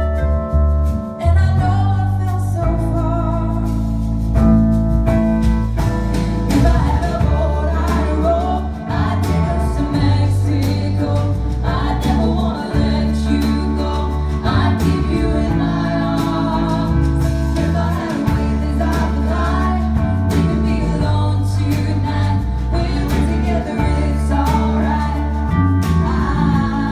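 Live band performance: a woman sings lead into a microphone over drums and a deep, steady bass line.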